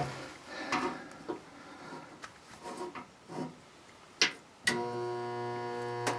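A few light handling clicks, then about four and a half seconds in a resistance spot welder switches on and holds a steady electrical hum as its transformer drives current through the clamped panel seam.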